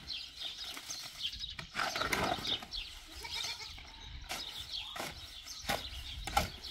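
A shovel scraping and knocking in a steel wheelbarrow as mortar is mixed, the knocks repeating every second or so and more often in the second half, with livestock bleating.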